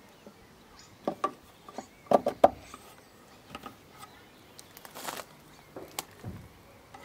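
Light plastic clicks and knocks as the windscreen washer reservoir's filler pipe is pushed into its socket and handled, the loudest pair about two seconds in and a sharp click near the end.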